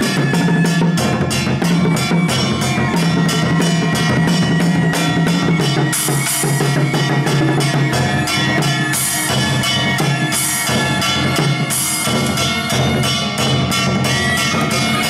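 A set of painted barrel drums played with sticks in quick, steady strokes, with a cymbal crashing four times in the second half. Steady held notes from other instruments run underneath.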